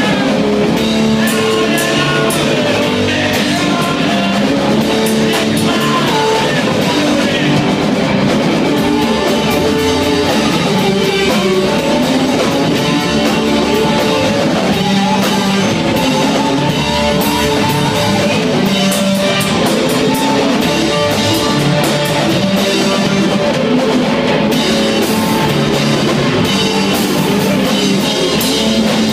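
Live rock band playing loudly: distorted electric guitars over a driving drum kit with frequent cymbal crashes.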